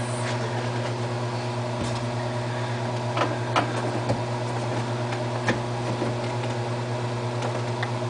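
Window air conditioner running with a steady electrical hum from its fan motor, its compressor not coming on. A few light clicks and taps of a screwdriver working on the unit's panel screws are scattered through it.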